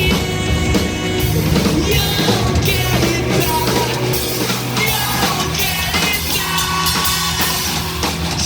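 A live rock band playing a loud, dense song, with the drum kit hitting steadily under held guitar and vocal lines.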